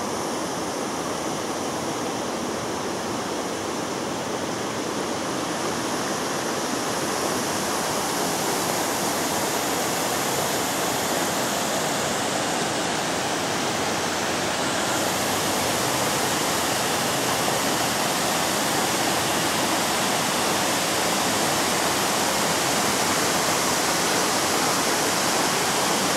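Waterfall rushing: a loud, even rush of falling water that holds steady throughout.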